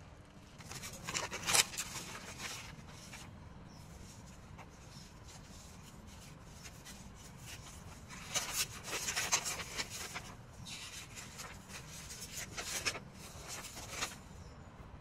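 Paper rustling in several short bursts: an envelope and banknotes being handled and thumbed through.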